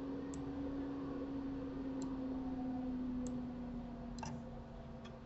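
Four sharp computer mouse clicks a second or so apart, over a steady low hum.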